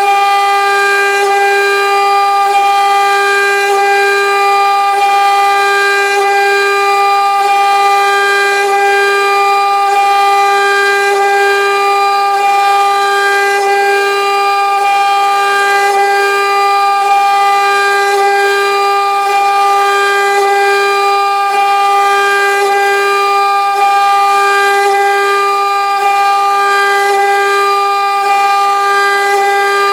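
CNC engraving machine's spindle running, cutting a job: a steady high whine with a slight regular pulse.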